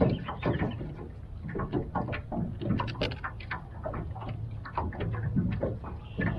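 Close handling noise: a quick, irregular run of small clicks, crinkles and knocks as hands work on gear, over a steady low hum.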